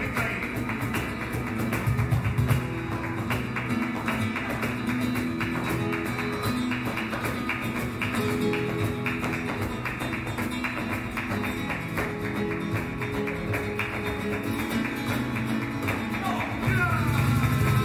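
Live flamenco music: acoustic guitar playing under dense, sharp percussive strikes from the dancer's footwork.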